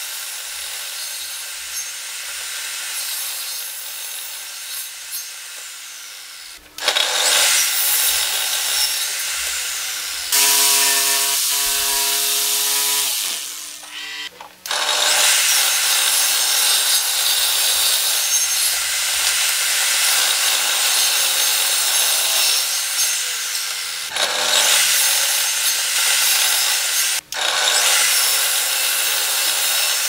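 Benchtop table saw cutting pallet boards and a thin sheet in several passes. The blade first spins free with a steady hum, then grows much louder and harsher while it is in the wood, with short lulls between cuts.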